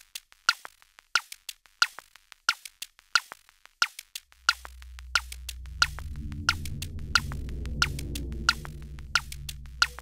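Electronic music: sharp drum-machine clicks in a sparse, repeating pattern. About four seconds in, a low synthesizer drone swells in beneath them.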